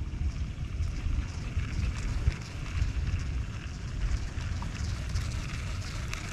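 Wind buffeting the microphone in uneven gusts, with a steady hiss above it.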